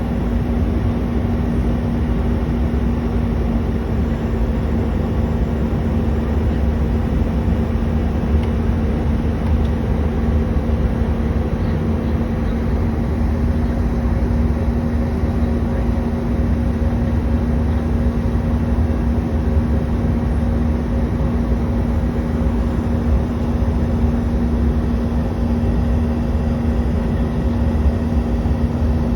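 CRJ200 regional jet's rear-mounted CF34 turbofan engines and airflow: a loud, unchanging drone with a deep rumble and a steady hum under it.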